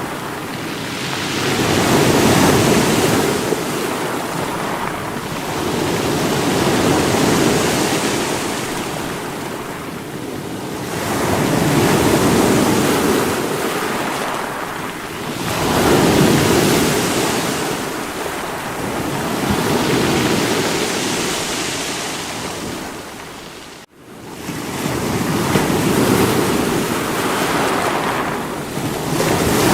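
Sea waves breaking against rocks, the surf swelling and falling back in slow surges every four or five seconds. The sound drops out for an instant about three-quarters of the way through.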